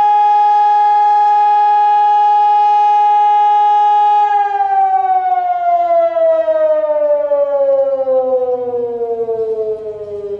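Civil-defence warning siren sounding its monthly test: a loud steady wail that, about four seconds in, begins winding down, its pitch falling smoothly and continuously.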